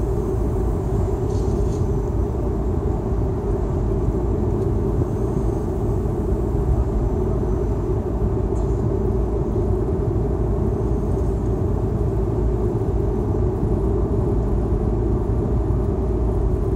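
Steady road noise of a car driving, heard inside its cabin: an even rumble of tyres and engine with no change in pace.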